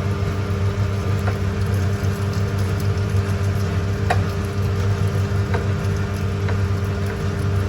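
Steady motor hum of a kitchen appliance running, with a few light clicks.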